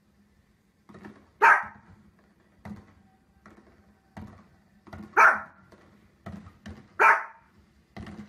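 Small fluffy dog barking three times, sharp and loud, with fainter short pops in between.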